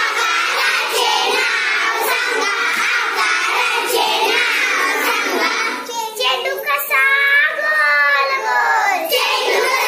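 A group of young girls singing a Marathi children's song together.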